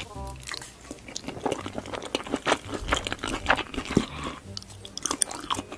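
Close-miked chewing of spaghetti with sausage and green pepper: irregular mouth clicks and smacks.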